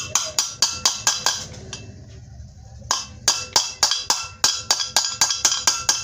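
Small hammer tapping the split collet of a bearing puller down into a ceiling fan's bearing, metal on metal, seating the puller so the bearing can be drawn out. Quick light strikes about four a second, each with a brief ring, pausing for about a second partway through before a longer run.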